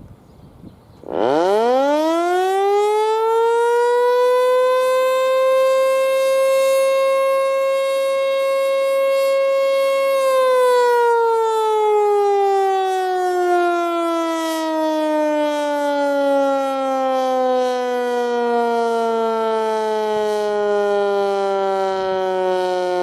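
ASC (American Signal) T-121 outdoor warning siren sounding a short alert. It starts about a second in, winds up quickly to a steady high pitch, holds it for about six seconds, then winds down slowly with the pitch falling.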